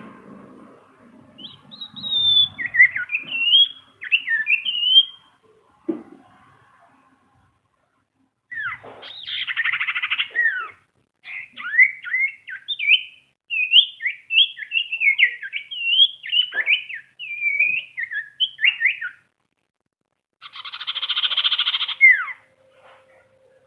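Common iora (cipoh, 'sirtu') singing: phrases of quick, high whistled notes with pauses between them, broken twice by harsh buzzy rattles, about ten seconds in and near the end.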